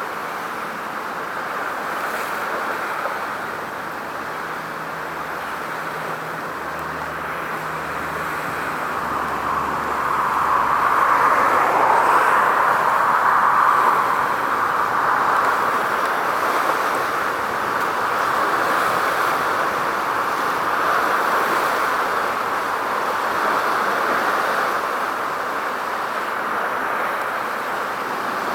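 Steady rush of distant road traffic, swelling for a few seconds about ten seconds in and then easing back to a steady level.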